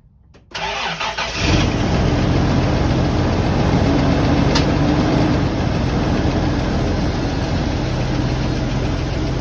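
Toyota Land Cruiser FJ62's 3FE straight-six petrol engine cranking for about a second, catching, and settling into a steady idle.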